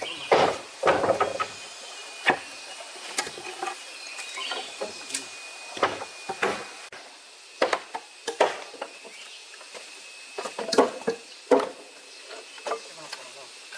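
Scattered knocks and clatters of hands at work, a few a second and uneven in strength, over a faint steady high tone.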